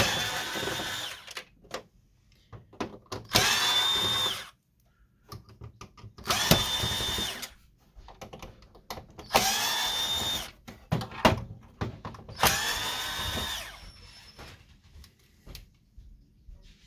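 Cordless drill-driver backing screws out of a printer's frame: five short runs of about a second each, each with a high motor whine, and small clicks and knocks of handling in between.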